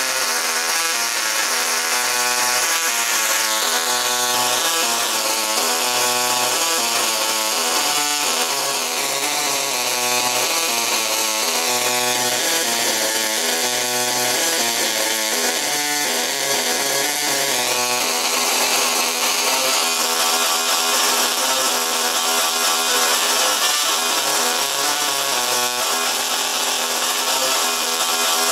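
Solid-state Tesla coil driven by a full bridge of 40N120 IGBTs, its sparks buzzing loudly and changing pitch from note to note, playing a tune.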